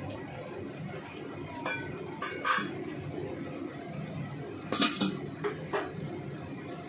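Stainless steel cookware clinking: a few light, ringing clinks about two seconds in, then a louder cluster of metal clanks about five seconds in as a domed stainless steel lid is set down onto the wok. A steady low hum runs underneath.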